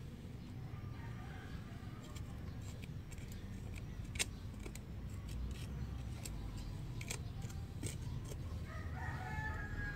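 Scattered sharp clicks and snaps from hands working in soil and roots while digging up purple yam, over a steady low rumble; a chicken calls faintly early on and a rooster crows near the end.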